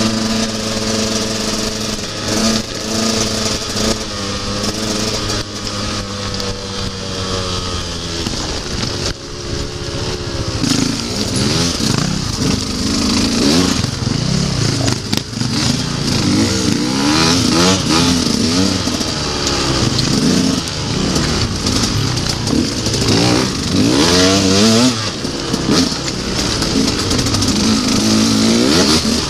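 Enduro motorcycle engine heard from on board the bike: held at a steady pitch for about the first eight seconds, then revving up and down quickly and repeatedly for the rest.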